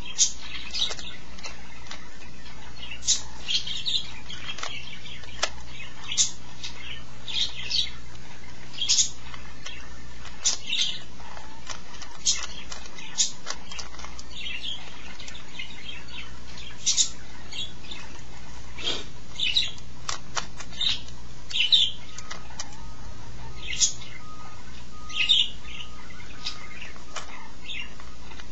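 Plastic Rubik's cube being turned by hand during a solve: quick, irregular clicks and clacks of the layers snapping round, in short flurries with brief pauses between.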